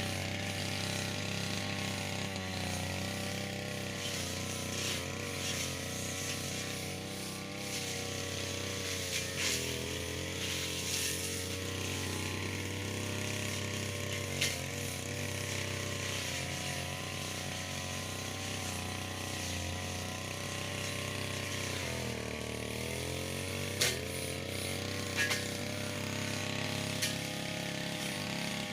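A brush cutter's small engine runs steadily at high speed while cutting grass. Its pitch dips briefly twice, about a third of the way through and again near the end, and a few sharp clicks can be heard.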